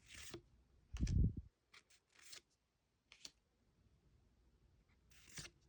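Trading cards being handled, a few short papery swishes of cards sliding against each other and a small click. About a second in comes a dull, low thump, the loudest sound.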